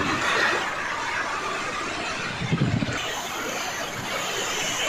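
Floodwater rushing over and through a submerged low bridge: a steady rushing noise, joined by a brief low rumble about halfway through.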